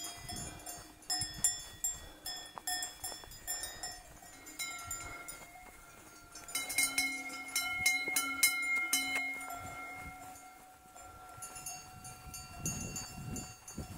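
Cowbells on grazing cattle clanging irregularly as the animals move, each strike ringing on. The clangs are loudest in a flurry a little past halfway.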